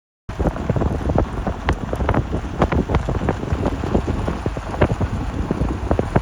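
Wind buffeting the microphone with a heavy low rumble, peppered by frequent sharp knocks and rattles. It starts abruptly just after the beginning.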